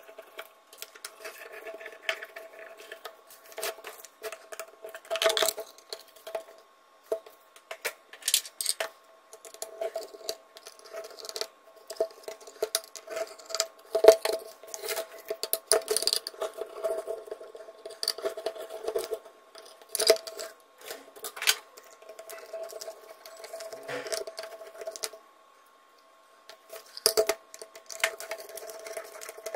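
Screwdriver undoing screws and the sheet-metal cover of a switch-mode power supply case being worked loose: irregular metallic clicks, taps and scrapes, with small screws set down on the bench, over a faint steady hum.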